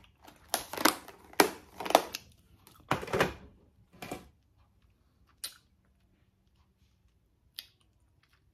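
Clear plastic pill box being handled: a run of sharp plastic clicks and knocks over the first four seconds, then a couple of faint clicks.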